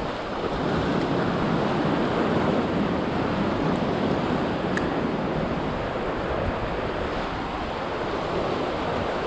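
Ocean surf washing steadily against the boulders of a rock jetty, with wind on the microphone.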